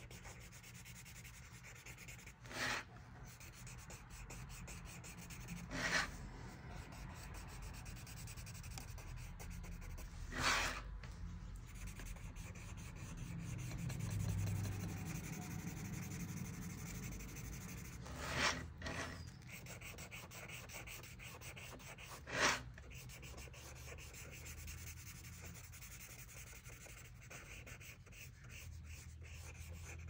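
Paper blending stump rubbing graphite into sketchbook paper in small shading strokes, a faint steady scratchy rubbing. It is broken five times by brief, louder scuffs a few seconds apart.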